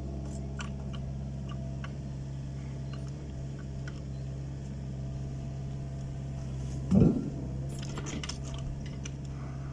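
Takeuchi excavator's diesel engine running steadily, with faint scattered clicks and rattles and one loud thump about seven seconds in.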